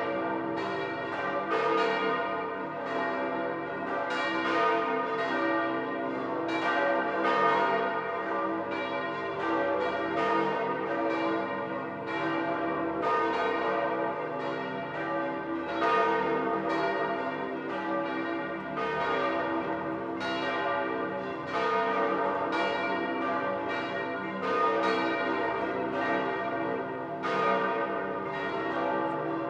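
The bells of St. Peter's Basilica in full peal, rung to announce the election of a new pope. Several bells strike in irregular, overlapping succession every half second to a second, their tones ringing on under each new stroke.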